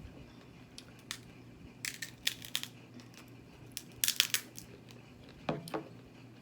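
Crab shells being cracked and pulled apart by hand. Clusters of sharp crackling snaps come about two and four seconds in, with a duller crunch near the end.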